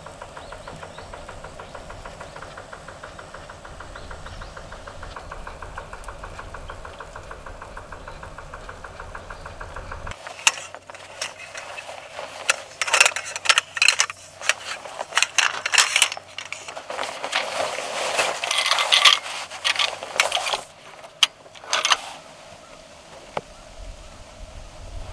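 A small fishing boat's engine running steadily with a fast, even putter. About ten seconds in it gives way to louder rustling of a nylon gear bag and sleeping-bag compression sack being handled, with clicks from their straps and buckles.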